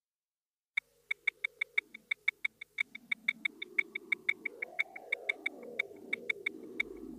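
Sound-effect soundtrack: sharp, high ticks at about six a second over a low, wavering drone that grows louder toward the end.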